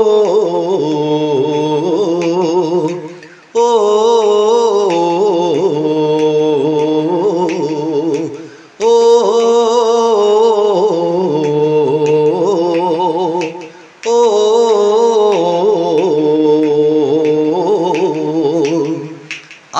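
Male singing of a wordless, drawn-out 'oh' vocalise in a Malayalam song, in four long wavering phrases, each breaking off briefly before the next.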